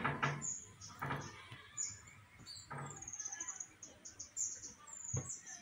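Small birds chirping repeatedly in short high chirps, with a quick falling trill about three seconds in. Brief low voice sounds break in a few times.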